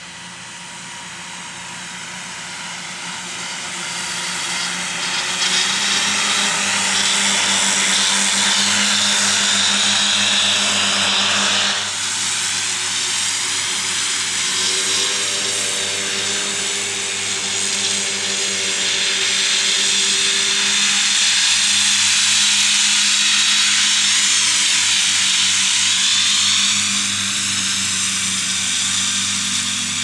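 Fendt 826 Vario tractor engine running under load while its Kuhn FC 9530D triple disc mower-conditioner spins, a steady engine drone under a high whirring hiss. It grows louder over the first six seconds as the rig nears, dips briefly about 12 seconds in, then holds loud.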